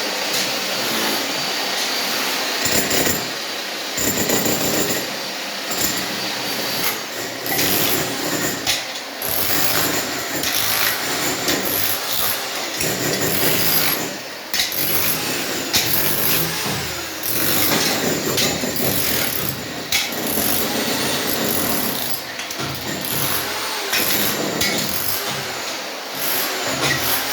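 Power tool running in irregular bursts, with repeated knocks and scraping, during repair work on damp walls.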